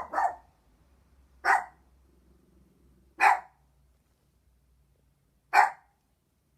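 A dog barking: five short, sharp barks, two in quick succession at the start, then single barks at a slowing, uneven pace.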